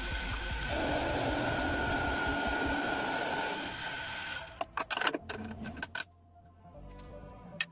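Lathe running with a steady whine and hiss for about four and a half seconds, then stopping, followed by several sharp clicks and knocks.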